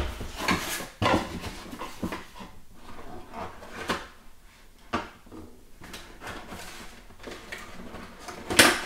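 A boxed Bluetooth headset kit being opened and unpacked by hand: the lid of the red product box being handled and parts and a cable pulled out of its foam tray, making irregular light knocks, clicks and rustles, with one louder knock near the end.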